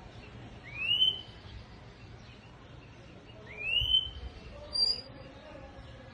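A caged 'negrito' songbird whistling: two loud upslurred whistles about three seconds apart, each rising and then levelling off, with a short high note after the second.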